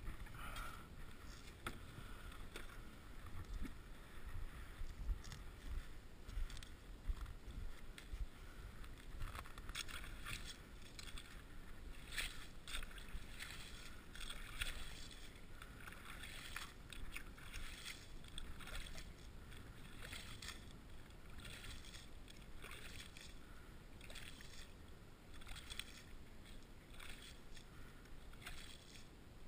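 Slotted ice skimmer scooping slush and ice chips out of a freshly drilled ice-fishing hole: repeated irregular scraping and sloshing strokes in icy water.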